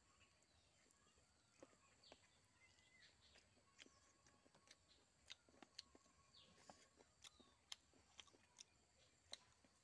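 Very quiet eating sounds: scattered soft clicks of chewing and of fingers mixing rice and curry on a banana leaf, more frequent in the second half. Faint bird chirps sit in the background.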